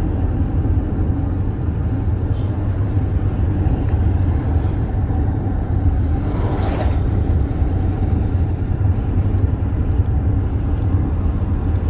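Steady road and engine noise heard inside a moving car: a constant low rumble, with a short swelling hiss about six seconds in.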